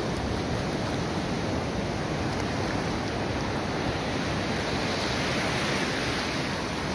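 Small waves of shallow surf washing in over sand and around the bathers, a steady rush of water that swells briefly about five seconds in as a wave runs up.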